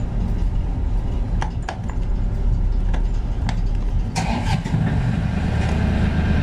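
Lifeboat diesel engine being started on the key after glow-plug preheating. A few light clicks come first, then about four seconds in the engine cranks, catches and runs steadily.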